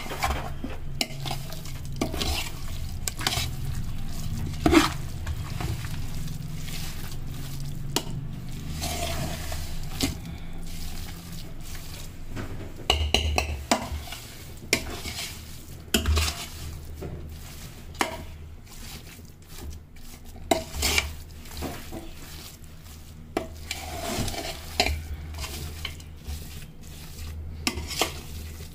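Metal spatula stirring and scraping a crumbly pinni mixture in a pan with ghee, with scattered scrapes and knocks against the pan and a light sizzle. A steady low hum runs beneath.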